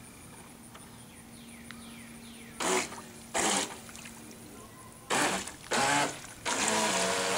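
Remote-controlled toy speedboat's small motor buzzing in four short bursts as the throttle is blipped, then running on steadily as the boat sets off.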